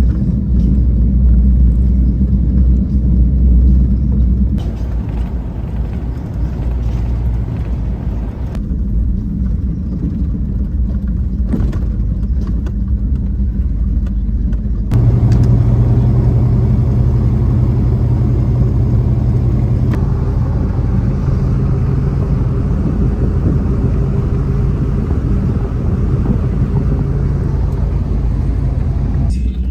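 Car driving along a road, heard from inside the cabin: a steady low rumble of engine and road noise. Its character changes abruptly three times.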